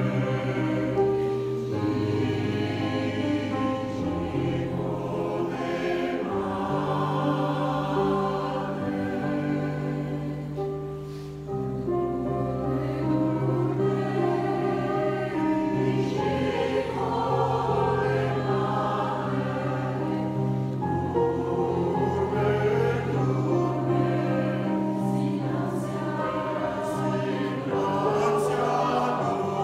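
Mixed choir of women's and men's voices singing in several parts, with long held chords and a brief softening around eleven seconds in.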